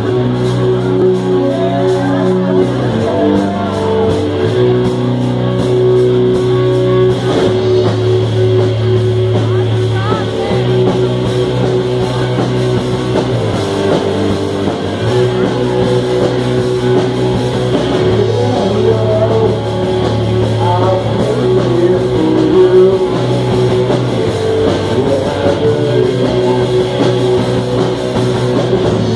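A rock band playing loud and live, with electric guitar, bass and drums: sustained heavy chords that change every few seconds over a steady drumbeat.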